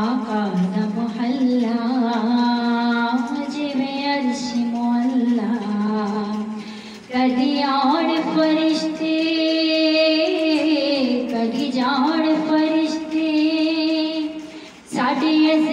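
A woman singing a devotional naat solo into a microphone, holding long notes with a wavering, ornamented pitch. She pauses briefly for breath a little past the halfway point and again near the end.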